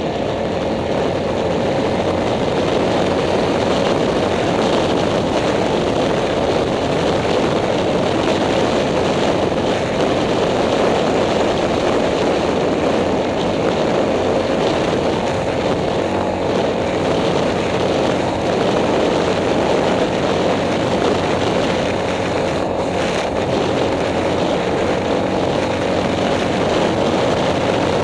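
Yamaha Grizzly ATV's single-cylinder four-stroke engine running steadily while cruising, holding an even level without revving up or down.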